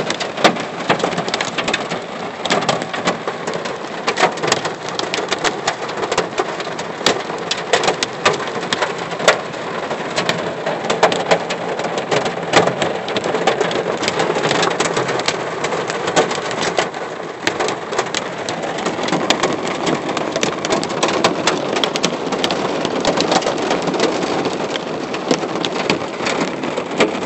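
Hail and heavy rain drumming on a car's roof and windshield, heard from inside the cabin: a steady loud hiss of rain with many sharp clicks of hailstones striking. The clicks thin out in the last third.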